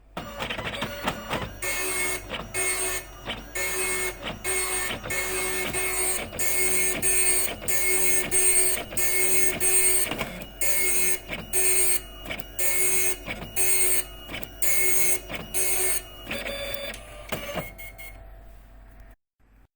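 Epson dot matrix printer printing line after line: the print head buzzes across the page in repeated passes, about one and a half a second. Near the end the passes give way to a quieter stretch, then it stops briefly.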